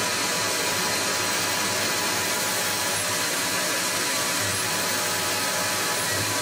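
Tormach 15L Slant Pro CNC lathe running with its spindle turning: a steady whir with faint high whine tones.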